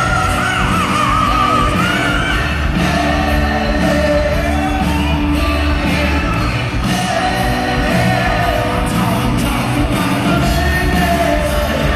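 A live rock band plays a song with a male lead singer over keyboard, electric guitars, bass and drums, heard loud from within the crowd.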